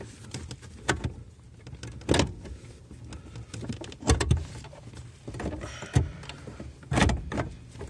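Metal pedal bracket being handled and knocked into place under a car's dashboard: scattered clunks and knocks over rustling and scraping as it is worked around the steering column and the brake master cylinder is eased aside. The loudest knocks come about four and seven seconds in.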